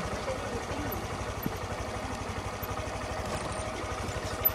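Honda Grom MSX 125's single-cylinder four-stroke engine running low and steady, its firing pulses even throughout. A single sharp knock sounds near the end.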